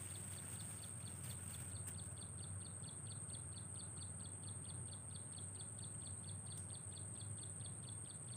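Outdoor wildlife sound: a rapid, even series of short chirps, about five a second, over a steady high-pitched whine, with a faint low rumble beneath.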